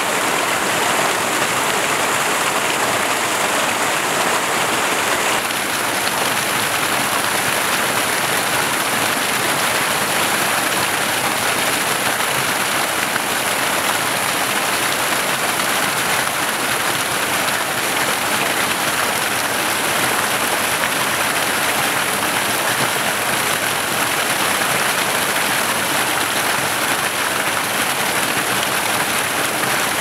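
Water in a stream running steadily, an even rushing hiss with no breaks.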